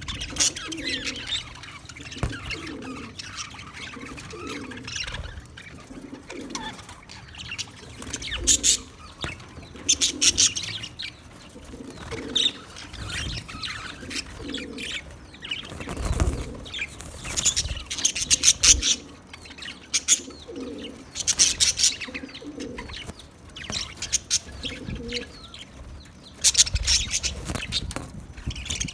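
Budgerigars chirping and chattering continuously, with louder clusters of sharp chirps every few seconds over lower repeated notes. A dull thump comes about halfway through.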